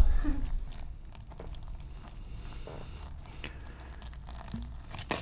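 A thud at the very start, then faint crunching and squelching as a gloved hand kneads powdered tile grout with water in a bucket.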